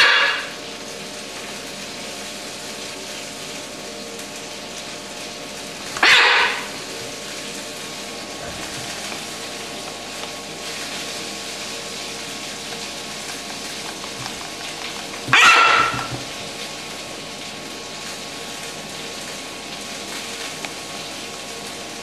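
Blue-and-gold macaw giving three short, harsh squawks several seconds apart, the begging calls of a macaw flapping its wings at feeding time.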